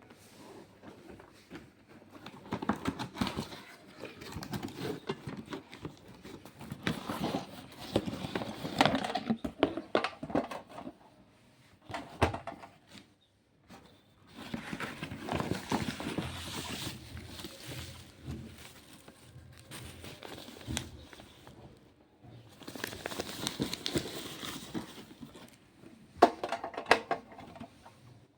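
Packaging and a small electric single cooktop being handled, with crinkling plastic or paper and light knocks in irregular bursts and a few short pauses.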